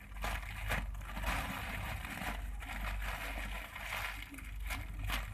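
Rustling handling noise from a foam squishy toy being squeezed and turned in the hands close to the microphone, with a few sharp clicks over a steady low hum.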